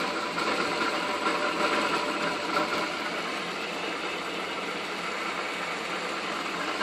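1947 Wards Logan metal lathe running under power, a steady mechanical whir of motor, belts and gearing.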